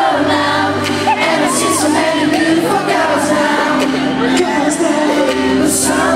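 Live pop music: a male singer sings into a handheld microphone over the band's backing, with crowd cheers and screams mixed in.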